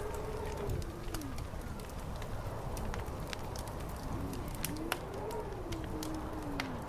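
Fire crackling with scattered sharp pops over a low rumble, while a low tone slowly rises and falls twice.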